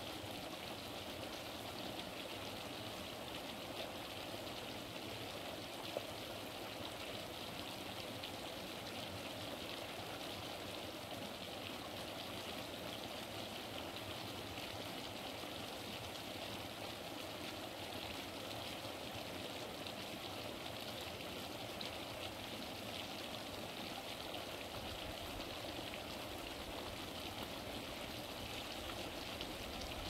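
Steady rushing of flowing stream water, with one brief click about six seconds in.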